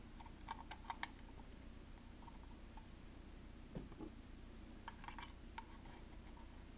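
Faint scattered clicks and crinkles of a thin aluminium drink-can stove body handled in the fingers, with a soft knock about four seconds in and a quick run of clicks about five seconds in as a small screwdriver's shaft is set against the rim to punch burner holes.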